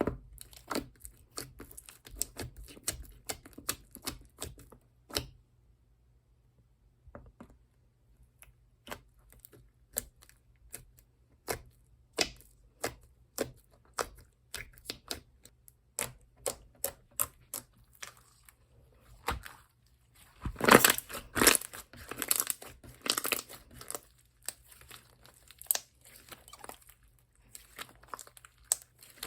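Slime being worked by hand, giving off a string of sharp clicks and pops, with a denser, louder run of crackling about two-thirds of the way through.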